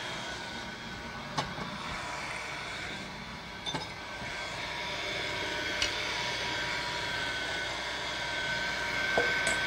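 Electric blender motor running steadily, puréeing a liquid mixture of chicken livers, eggs, cream and port wine, with a steady whine and a few light clicks.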